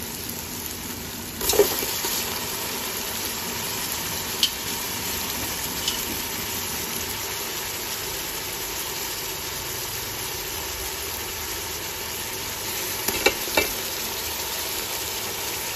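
Pieces of boiled beef tipped into hot oil with fried onions and garlic in a steel pot: a sudden surge of sizzling about a second and a half in, then steady frying sizzle. A few sharp clinks of the metal slotted spoon against the pot come near the middle and near the end.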